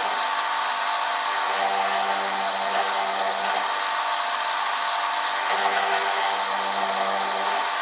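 Drill press motor running steadily, with a low hum that fades out and comes back every couple of seconds.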